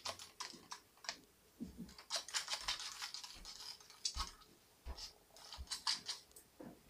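Irregular clicks, taps and scratchy rubbing of hands handling things close to the microphone, with a few soft thumps.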